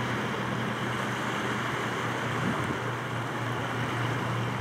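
Steady wind and choppy-water noise, with a low steady hum underneath.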